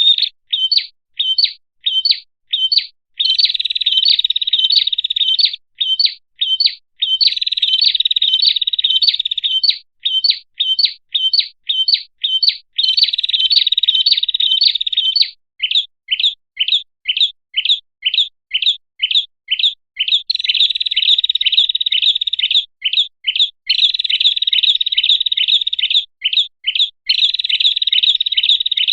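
Song of a small prenjak songbird, the red-headed prenjak, used as a bird-catching lure call. Runs of short, high chirps at about three to four a second alternate with dense, buzzy trills lasting two to three seconds each.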